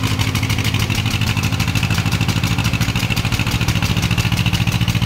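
Diesel engines of a T-25 tractor and a Mahindra 235 tractor running hard under load as they pull against each other on a chain, with a rapid, steady chugging beat.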